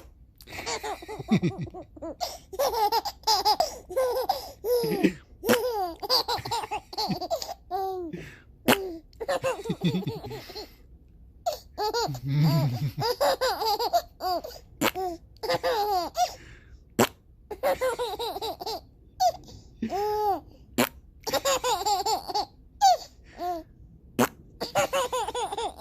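A baby laughing hard in repeated high-pitched bursts, set off by fart sounds. About twelve seconds in comes a short low buzzing fart-like noise.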